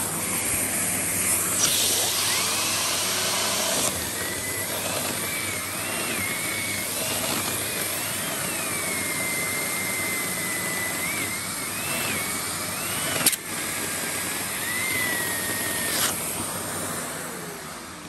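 Sebo K1 Komfort cylinder vacuum cleaner running, which sounds fine to the owner: a steady motor noise with a whine whose pitch rises and falls as the power dial on top is turned, broken by a few sharp clicks. The level sags near the end.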